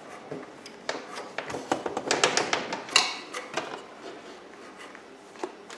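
Insulated electrical wires being pulled through half-inch EMT conduit into a metal breaker panel and junction box: rustling and scraping with sharp metallic clicks, busiest from about a second in until nearly four seconds, the loudest click around three seconds.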